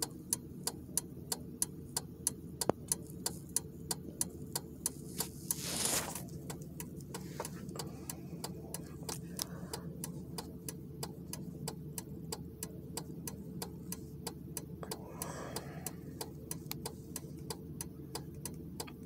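Steady, regular ticking, about two to three ticks a second, over a low steady hum. A brief rush of noise swells and stops about six seconds in.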